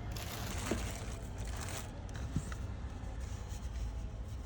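Rustling and light scraping of packaging as pressure-washer accessories are handled, loudest in the first two seconds, with a couple of small clicks over a steady low hum.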